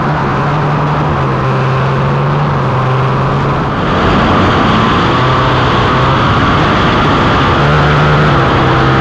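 Racing ATV engine held at steady high revs under a loud rushing hiss, holding one pitch with no rises or shifts, then cutting off sharply near the end.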